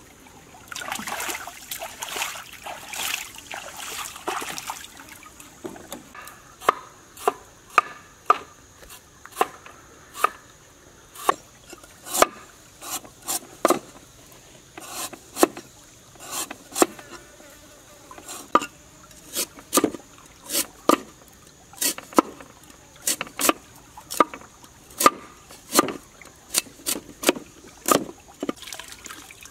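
Sharp knocks of a cleaver chopping fresh ginger on a wooden board, irregular at roughly two a second, starting in earnest about six seconds in. A faint, steady, high insect buzz runs underneath.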